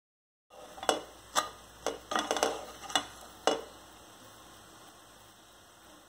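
Wooden spatula knocking and scraping against a nonstick frying pan as it is worked under a dosa to lift it: about six sharp knocks in under three seconds, over a faint steady hiss of the dosa cooking.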